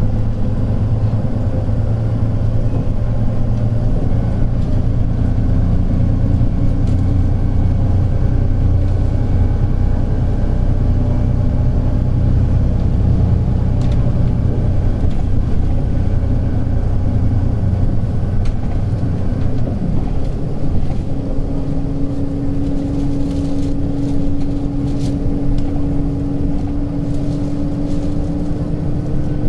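Hino P11C inline-six diesel of a 2001 Hino Blue Ribbon City non-step bus (KL-HU2PPEE) running as the bus drives, heard from inside the cabin with a window half open. Its low engine note is strongest at first; about two-thirds of the way through a steady whine joins in and rises slightly.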